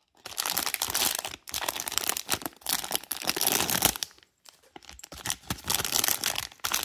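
Plastic blind-box pouch crinkling and tearing as it is worked open by hand, in two long stretches with a short pause a little past the middle.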